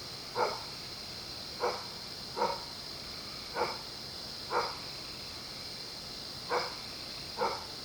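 A dog barking in single short barks, seven in all, spaced about a second apart, over a steady high-pitched hiss.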